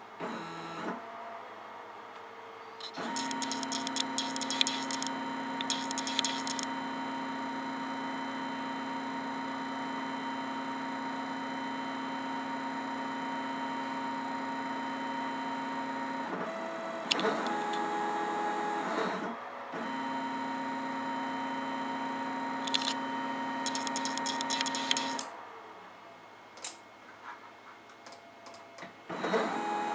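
Unloaded stepper motor on a CNC controller's drive, running with a steady whine of several held tones. Midway the pitch shifts for a few seconds as the motion changes, then the steady whine returns. It stops near the end, followed by a few light clicks.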